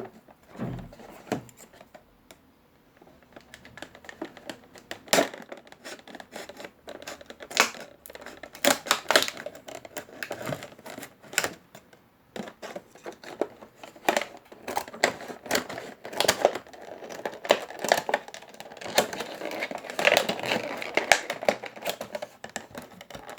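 An action figure's plastic blister pack and cardboard card being opened by hand: an irregular run of sharp clicks, crackles and tearing, busiest from about five seconds in.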